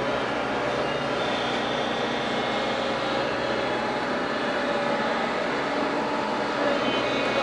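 Heavy construction-site machinery running steadily, a continuous engine drone with a few held whining tones, muffled by a closed window.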